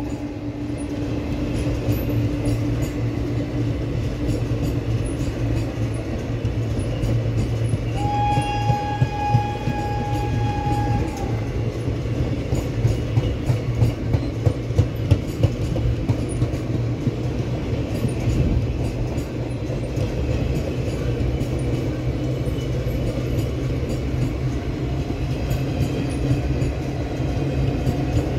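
Passenger coaches of an Indian express train rolling past at speed: a steady rumble of wheels on rail, with rhythmic clickety-clack over the rail joints that grows strongest in the middle. About eight seconds in, a train horn sounds one long note for about three seconds.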